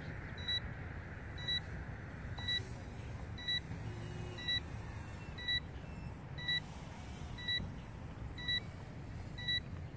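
Electronic buzzer beeping about once a second, ten short high beeps in a row, a low-battery warning during the FPV flight of an ET 125 micro quad. A steady low rumble runs underneath.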